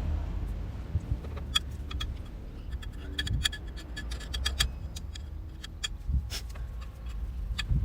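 Scattered light metallic clicks and clinks of hand tools and bolts being handled while a motorcycle's generator cover is refitted, over a low steady rumble.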